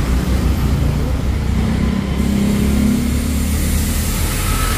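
Honda PCX 160 scooter's single-cylinder engine idling through an SKR aftermarket exhaust: a steady low running note that swells slightly about two seconds in.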